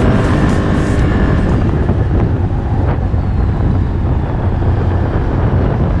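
ATV (quad bike) engine running steadily under way on a beach ride, heard from the machine itself.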